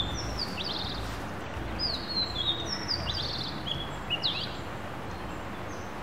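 Songbird singing in phrases of short, quick chirps that fall in pitch, over a steady background hiss; the song stops about two-thirds of the way in.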